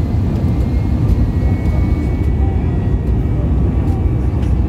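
Steady low rumble of an Airbus A321 in flight heard from inside the cabin: engine and airflow noise during the descent.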